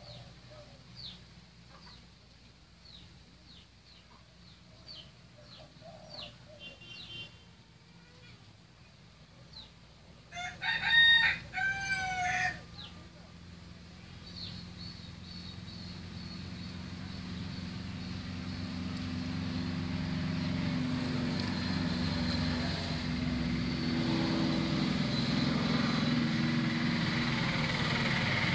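A rooster crows once, loudly, about eleven seconds in, over short bird chirps repeating about once a second. From about fourteen seconds a steady engine hum fades in and grows louder.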